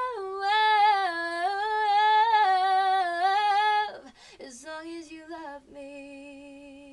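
Woman singing unaccompanied, holding a long run of sung notes that step up and down in pitch. After a short break about four seconds in, she ends on a softer, lower held note.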